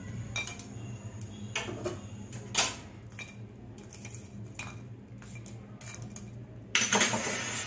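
A perforated metal spatula clinks and scrapes against a small steel bowl while lumps of hot charcoal in it are pushed into place. There are a few sharp knocks, the loudest about two and a half seconds in, and a longer scrape near the end, over a steady low hum.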